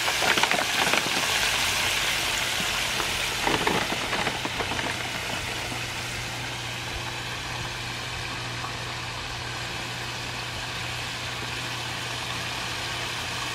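Frog legs deep-frying in hot oil in a cast-iron Dutch oven, a steady sizzle, a little louder in the first few seconds. A steady low hum, as of a motor, runs underneath.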